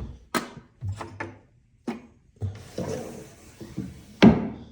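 Wooden knocks and clunks from a record console's cabinet being handled, a series of separate hits with the loudest near the end.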